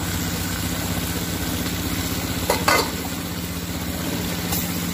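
Hilsa fish with rice bran frying and being stirred in a pan: a steady sizzle over a low, evenly pulsing drone, with a couple of short sharp sounds about two and a half seconds in and another near the end.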